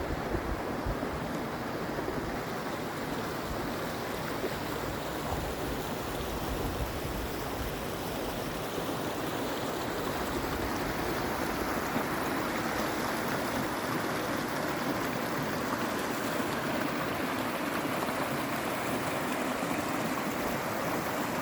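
Creek water running steadily, a constant rushing.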